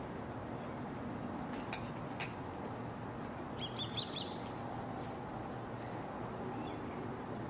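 Swallow-tailed kite calling: a quick run of high, thin whistled notes about four seconds in. Two faint clicks come a little earlier, over a steady background hiss.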